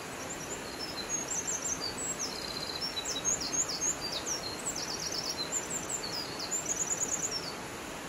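A songbird sings a long, fast song of high chirps, trills and quick downward slurs, starting just after the start and stopping near the end. Behind it runs the steady rush of a waterfall.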